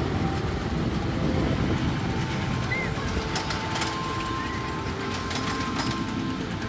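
Roller coaster train rumbling steadily along its track, with faint tones and scattered clicks above the rumble.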